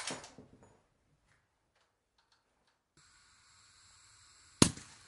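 A single sniper rifle shot near the end, sharp and loud with a short tail. Before it, a sharp knock at the very start dies away within a second, then near silence before a faint steady outdoor hiss.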